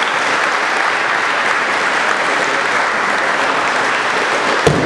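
Audience applauding steadily, with a heavy thud near the end as a student is thrown onto the mat.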